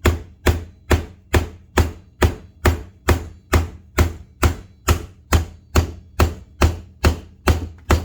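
Evenly paced strikes on the spine of a SOG Aegis FL folding knife, about two a second, driving its blade deep into a block of wood.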